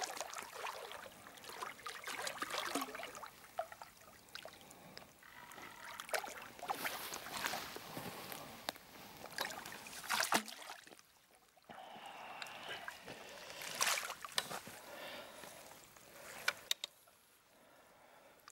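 Irregular scuffing, scraping and knocking of someone moving about on a stony lakeshore and handling a landing net, with water sloshing at the bank.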